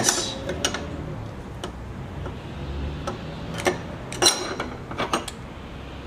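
Small metal clicks and taps of a steel screwdriver and the metal slide plate against the Singer 503A sewing machine's needle plate and spring, about ten scattered sharp ticks, the loudest about four seconds in.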